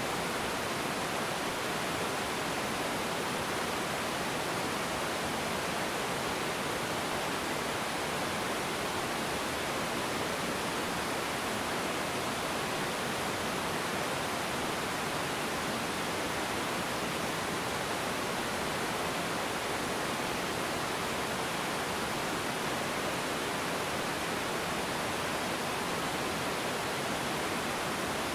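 Small river waterfall: water pouring over a rocky ledge and running over the stones below, a steady, even rush with no breaks.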